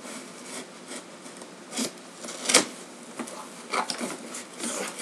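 Cardboard box and packaging being opened and handled by hand: rubbing and rustling, with a few sharp knocks, the loudest about halfway through.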